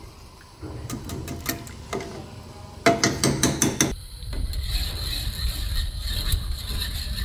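Wire whisk clicking and scraping against the sides of a metal pot as a thickening chocolate milk and cornflour mixture is stirred continuously to keep lumps from forming. The clicks come quickly, densest about three seconds in, then give way to a steadier low rumble with only scattered clicks.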